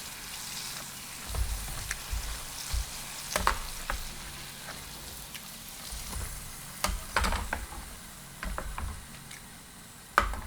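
Karaage (Japanese fried chicken) pieces deep-frying in hot oil in a pan: a steady sizzle, with now and then a click or knock of a utensil against the pan.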